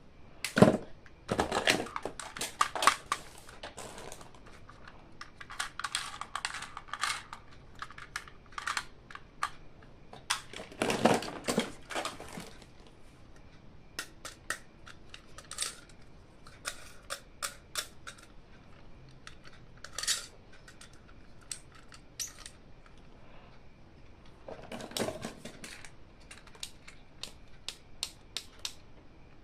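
Hands handling plastic toys and packaging: scattered sharp plastic clicks and taps with short bursts of rustling and scraping, the busiest stretches near the start and about eleven seconds in.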